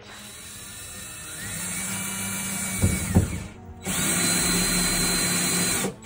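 Cordless drill driving screws in two runs. The first run speeds up over a second or two, with two sharp knocks near the three-second mark, and stops; the second starts about four seconds in at a higher, steady speed and cuts off just before the end.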